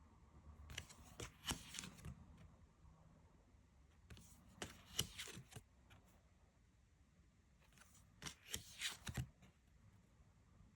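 Tarot cards being handled during a flip-through, with soft card snaps and slides in three short bursts, roughly at the start, the middle and near the end.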